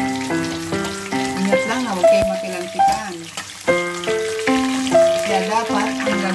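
Pork ribs deep-frying in a pan of hot oil, a steady sizzle and bubbling, under louder background music of changing held notes.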